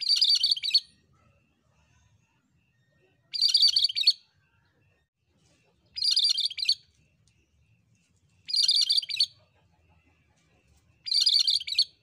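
Cucak kerinci, a Sumatran bulbul, singing five short chirpy song phrases, each under a second long, about two and a half seconds apart.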